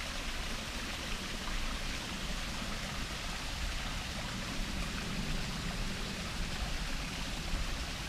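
Small woodland waterfall, a thin five-tier cascade, splashing steadily into its pool.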